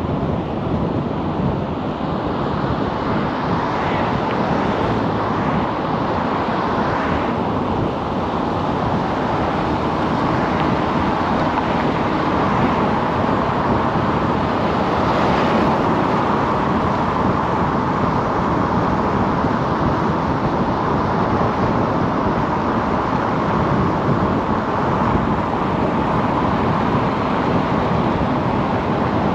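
Steady road noise of a car being driven: an even rush of tyre and wind noise, with a brief swell about fifteen seconds in.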